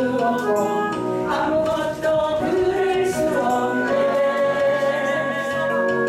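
A woman singing a Korean gospel praise song into a handheld microphone, with long held notes over steady instrumental accompaniment.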